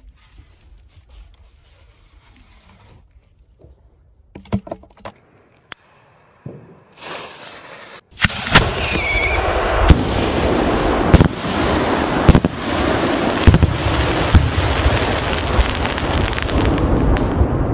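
Large aerial firework shell fired from a mortar tube: a short fuse hiss, then a sharp bang about eight seconds in, followed by loud, dense crackling with many sharper bangs scattered through it as crackling stars burst.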